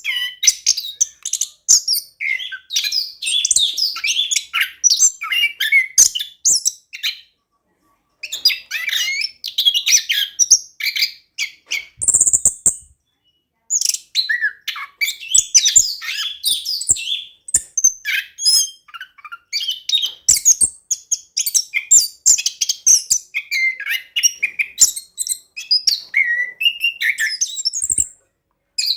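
Orange-headed thrush singing a long, fast, varied song of chirps, trills and whistled phrases, in rolling runs broken by two short pauses, with one harsh high note near the middle.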